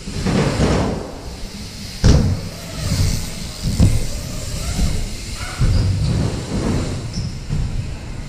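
Rumbling with loud thuds about two seconds in and again near four seconds, typical of BMX wheels rolling over and landing on wooden skatepark ramps.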